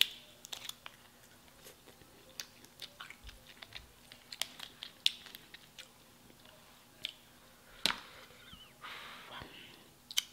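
Cooked lobster tail shell being cracked and pulled apart by hand in a scattered run of sharp clicks and crackles, with chewing.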